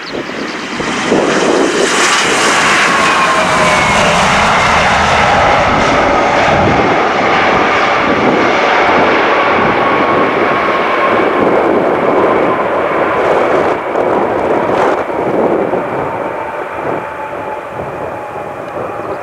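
Embraer ERJ-170 jet airliner on its landing rollout: the roar of its twin turbofan engines builds about a second after touchdown and stays loud, then slowly eases off. A whine runs through the roar and slowly falls in pitch.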